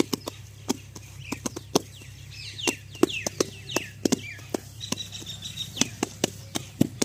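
Hands slapping and patting wet cow dung as it is shaped into dung cakes: sharp, irregular slaps, about two a second. Birds chirp in the background.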